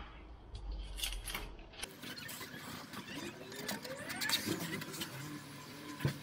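Handling noise from gloved hands working along the edge of a fibreglass-laminated shelf: scattered clicks, rubbing and scraping, with a few short rising squeaks.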